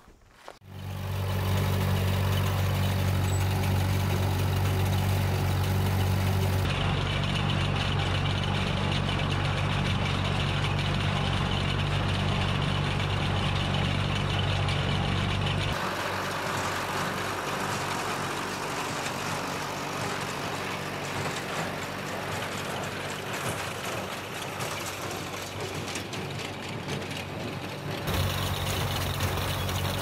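Old tractor engine running at a steady speed, driving a New Holland wire-tie square baler through its PTO shaft as it picks up and bales hay. The engine hum is strong for the first half, drops to a weaker, noisier sound about halfway through, and returns louder near the end.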